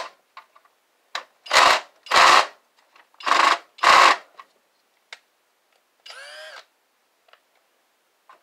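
Cordless drill driving screws on a CRT monitor's plastic casing in four short trigger bursts, then a brief fainter whir about six seconds in. The drill is set the wrong way, tightening the screws instead of backing them out.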